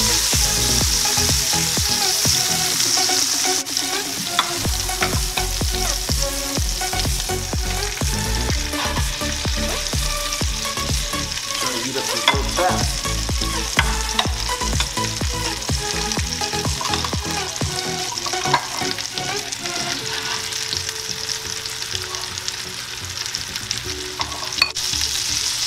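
Butter and olive oil sizzling steadily in a hot enameled cast-iron skillet as sesame-crusted ahi tuna steaks are laid in to sear.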